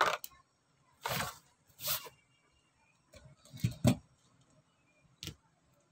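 Clear plastic blister packaging and cardboard backing being handled as a toy monster truck is taken out: about five short crinkles and knocks, spread over a few seconds with quiet between.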